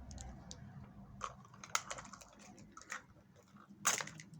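Small plastic toy packaging being handled: scattered clicks and crinkles, with one louder crinkle near the end.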